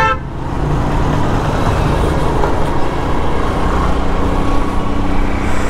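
City road traffic: vehicle engines running with a steady low rumble of traffic noise.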